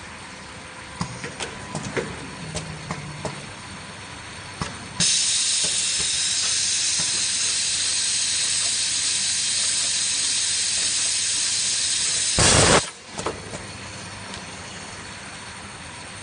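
Automatic earphone cable soldering machine running: several sharp mechanical clicks, then a steady high hiss for about seven seconds. The hiss ends in a short, loud blast, followed by a few more clicks.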